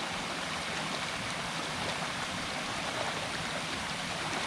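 Steady rush of flowing stream water by a plunge waterfall, the river running high after weeks of rain.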